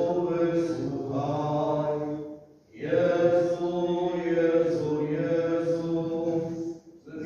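Liturgical chanting at a Catholic Mass: voices sing long phrases on steady held notes, pausing briefly between phrases about two and a half seconds in and near the end.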